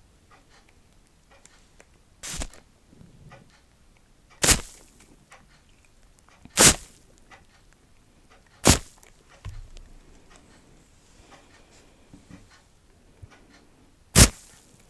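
ASMR trigger sounds close to the microphone: five short, sharp sounds, the first four about two seconds apart and the last after a longer gap, with faint small clicks and rustles between them.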